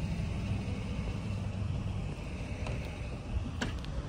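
Delivery box-truck engine idling steadily, a low rumble, with a few light clicks near the end.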